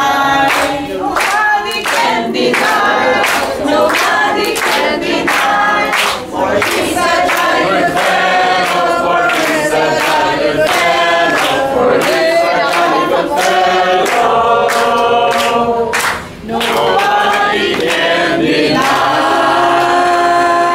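A group of men and women singing a song together in chorus, without instruments, with a short break between phrases about sixteen seconds in.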